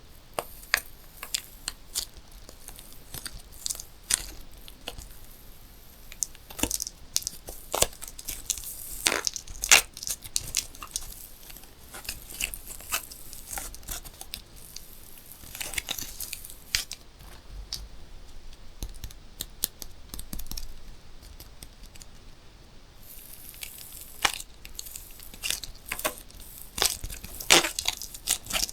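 Balloons being popped one after another: many short, sharp pops at irregular intervals, the loudest about ten seconds in.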